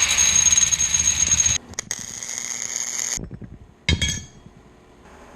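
A steady high whine from a power tool working on steel, which stops abruptly, then a single sharp metallic clink that rings briefly.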